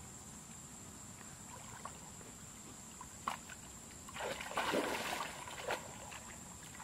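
Water sloshing and splashing as a person wades through shallow muddy water and feels under the surface with her hands. A short splash comes about three seconds in, then a longer run of sloshing about four to five seconds in, and one more splash near six seconds.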